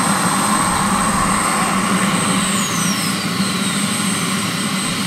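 Twin model turbine jet engines of a large RC A-10 Warthog running on the ground with a steady high whine over a rushing exhaust noise. About halfway through, one whine drops steadily in pitch as a turbine spools down.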